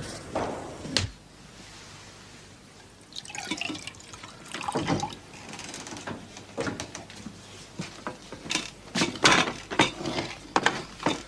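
Mugs, plates and cutlery clinking and knocking on a wooden table as men eat and drink, in short irregular knocks.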